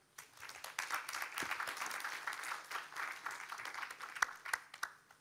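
A small audience applauding. The clapping starts just after the opening, then thins out to a few scattered single claps and stops near the end.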